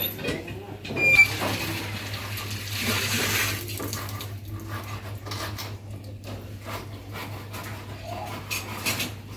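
Scattered light metallic clinks and knocks, with a short ring about a second in, as corrugated tin roofing sheets are handled and fitted on a roof, over a steady low hum.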